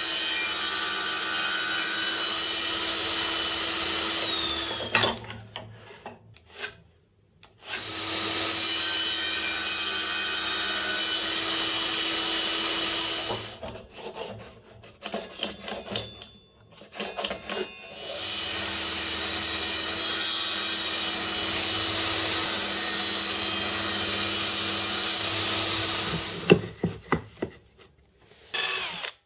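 Small table saw running and crosscutting birch plywood, three cuts of several seconds each. Between the cuts and near the end come knocks and clicks of wood being handled.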